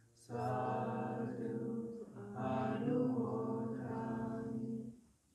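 Theravada Buddhist chanting in Pali, voices held on a steady low monotone in two long phrases, stopping about five seconds in.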